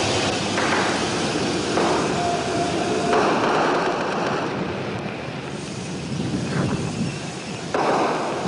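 Dense rushing noise from an old archival recording, changing abruptly several times, with a brief steady tone about two seconds in.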